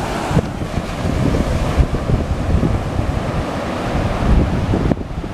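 Wind buffeting the microphone with a rumbling roar, over the steady wash of ocean surf breaking on the beach.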